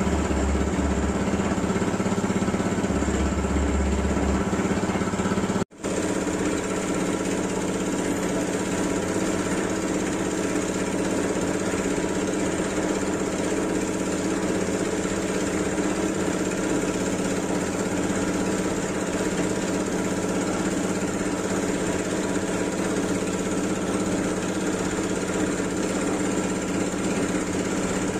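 A motor running loudly and steadily with an unchanging engine-like tone. The sound cuts out for an instant about six seconds in, then carries on the same.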